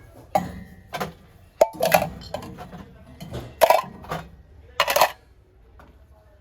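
Brass items clinking and knocking against each other as they are handled, a series of separate sharp metallic clinks, some with a brief ring.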